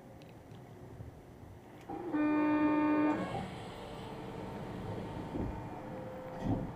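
A single steady horn toot, about a second long, followed by the steady running noise of a driverless elevated train heard from inside its front cabin, with a thump near the end.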